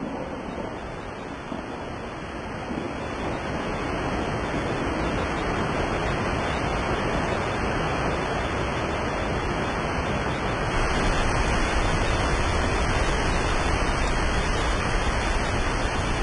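Rushing water of a large waterfall, a steady roar that grows gradually louder, with a deeper rumble coming in about eleven seconds in.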